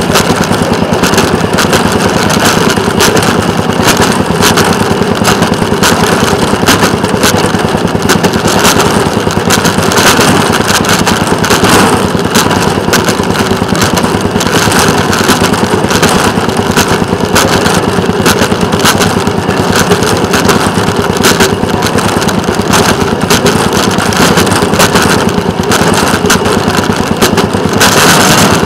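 Engine of a small rail excursion vehicle running steadily as it travels along the track, with many short sharp clicks over the running noise.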